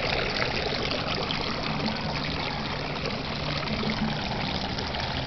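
Water trickling and running steadily, with an even, continuous splashing hiss.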